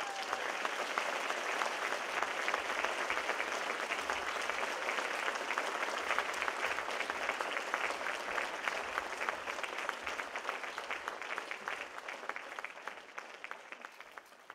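Audience applauding, many hands clapping at once, the clapping gradually dying away near the end.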